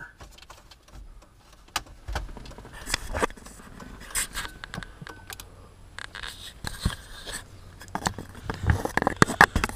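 Plastic instrument cluster being worked out of a dashboard and turned over: irregular light clicks, knocks and scrapes of plastic against plastic, busier near the end.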